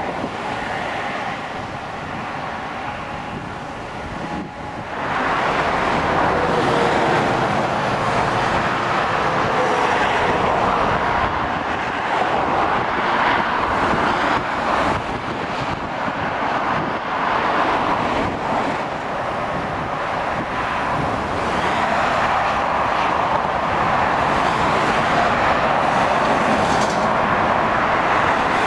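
Motorway traffic of lorries and cars passing with a continuous tyre roar, which gets louder about five seconds in and stays so. Before that, a faint steady engine hum sits under the road noise.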